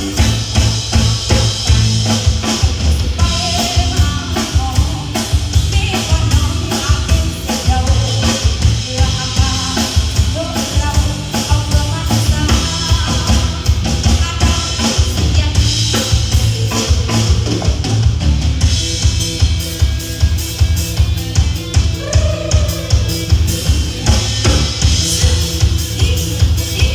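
Live band playing an instrumental number during a sound check, driven by a steady drum-kit beat with strong bass.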